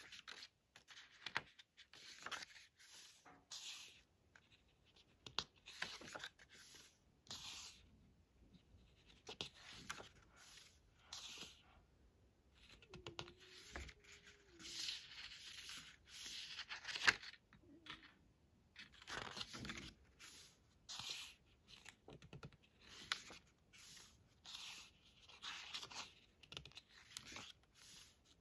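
Pages of a hardcover photobook being turned by hand: a string of soft paper rustles and swishes, roughly one a second, with fingers sliding over the pages.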